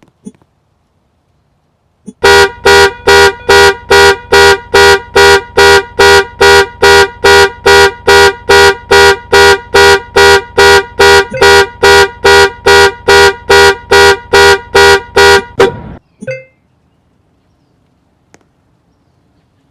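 A car horn blaring in rapid, evenly spaced honks driven by the car's panic alarm, about two and a half honks a second. It starts about two seconds in, runs for some fourteen seconds, and stops abruptly.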